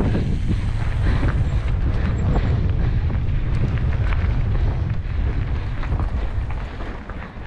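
Wind buffeting the microphone during a mountain bike ride, with scattered knocks and clicks from a Ragley Mmmbop hardtail rattling over rough trail. The rush eases a little near the end.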